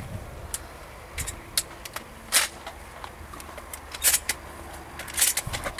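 Shotgun being handled during a reload: a string of irregular sharp clicks and clacks, a few of them louder, as shells are pushed into the magazine.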